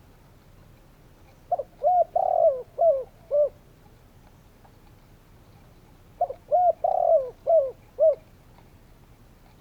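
Spotted dove cooing: two phrases of about five coos each, a few seconds apart, with a longer note in the middle of each phrase.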